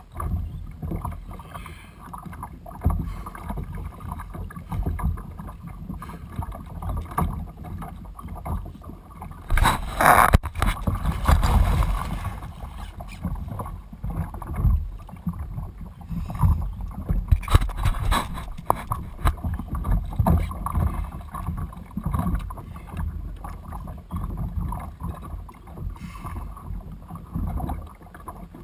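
Wind buffeting the camera microphone and water lapping at a kayak's hull. About ten seconds in comes a loud splashing rush, and a shorter one some seconds later, from a hooked tarpon thrashing at the surface beside the kayak.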